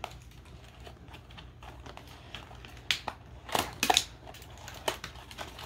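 Cardboard and plastic toy packaging being ripped and crunched by hand: scattered crackles and clicks, with a few sharper, louder ones around three to four seconds in.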